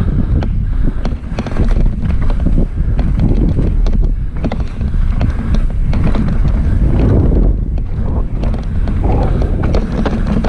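Wind rushing over the microphone of a mountain bike riding down a trail, with the bike's rattles and clatter over soft, wet dirt.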